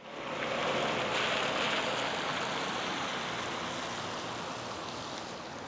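Steady outdoor street ambience: a wash of distant traffic noise that fades in at the start.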